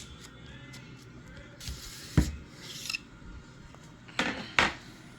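Metal rifle parts being handled and rubbed against each other and the bench: a scrape, a sharp knock about two seconds in, and two quick knocks near the end.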